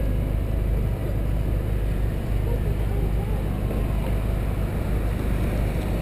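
Parked car's engine idling, a steady low rumble picked up by a camera on its hood, with street noise around it.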